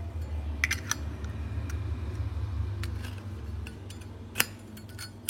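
Metallic clicks and clinks from a Zippo lighter being handled: a few light clinks about a second in and one sharp click a little after four seconds, over a low rumble that stops after about three and a half seconds.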